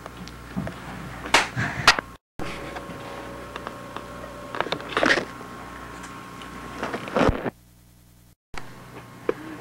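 Camcorder handling noise: a few scattered knocks and bumps, with two short dead-silent gaps where the recording cuts, and a faint steady tone in the middle stretch.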